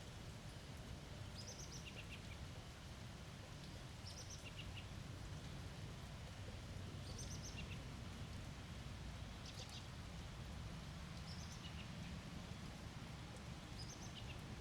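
A bird calling over and over, about six times, once every two to three seconds: each call is a short high note followed by a few lower chirps. A faint low steady rumble runs beneath.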